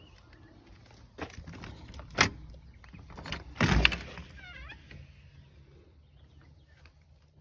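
A shop door being unlatched and opened. There is a sharp clack about two seconds in, then a louder rattle and scrape near four seconds, followed by a few short high squeaks.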